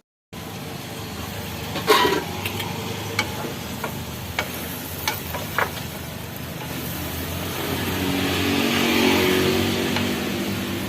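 Tauco and squid cooking in a pan: a steady sizzle with sharp clicks of a spatula against the pan, over a low steady hum. The sizzle swells about eight seconds in.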